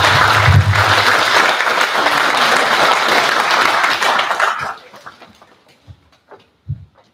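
Audience applauding, dying away about four and a half seconds in, followed by a few faint knocks.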